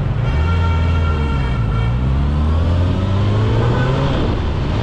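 Kawasaki ZX-6R's inline-four engine pulling away from a stop, its note climbing as the bike gathers speed from about halfway through.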